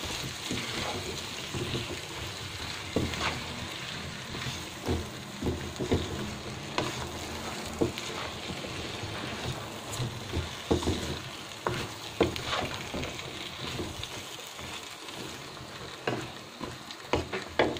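Eggplant pieces and spice paste sizzling in oil in a non-stick pan while a spatula turns them to mix the eggplant into the masala. The sizzle runs on under irregular scrapes and knocks of the spatula against the pan, which come more often near the end.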